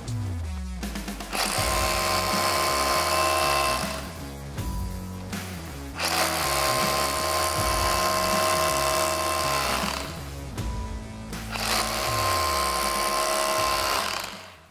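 Cordless SDS rotary hammer spinning and hammering threaded anchor rods into concrete through resin cartridges, using a setting tool. It runs in three bursts of a few seconds each, with the motor winding down in between. Background music with a steady beat plays underneath.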